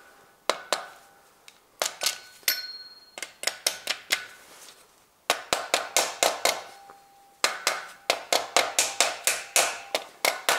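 A ratchet's plastic handle tapping on a stuck camshaft bearing cap of a Toyota 2ZZ-GE cylinder head, to free the tight cap. The knocks are sharp with a short metallic ring: a few scattered at first, then a steady run of about four a second from a little past the middle.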